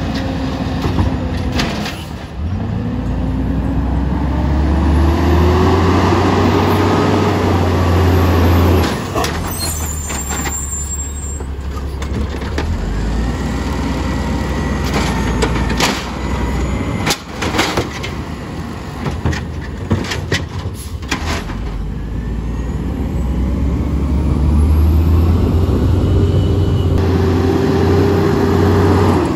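Automated side-loader garbage truck emptying a recycling cart: the diesel engine revs up as the hydraulic arm lifts, then sharp clanks and bangs as the cart is shaken out and set back down. Near the end the engine revs again as the truck pulls away.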